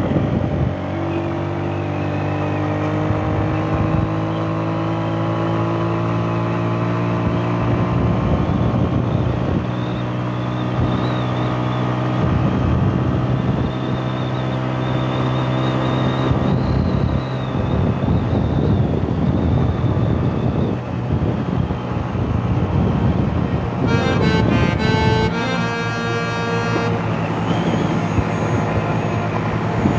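Honda CG 125 single-cylinder four-stroke engine running at road speed on the move, its pitch climbing slowly as it accelerates, with wind and road noise. Near the end, a few seconds of fast, regular clicking, then background music comes in.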